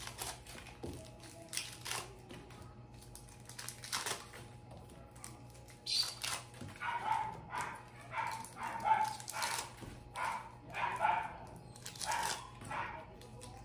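Wrappers of Bis chocolate wafers crinkling as they are peeled open by hand. From about six seconds in, a dog barks in a run of short barks, louder than the crinkling.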